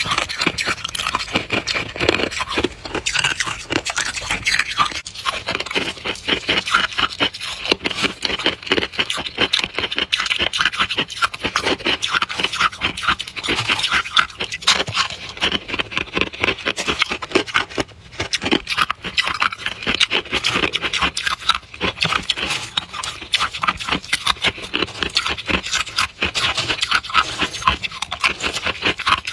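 Close-miked crunching of soft, powdery freezer frost being chewed: a dense, continuous run of quick crisp crunches.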